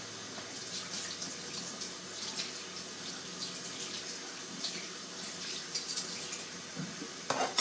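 Kitchen tap running steadily into a sink during hand dishwashing, with light clinks and scrapes of utensils being washed.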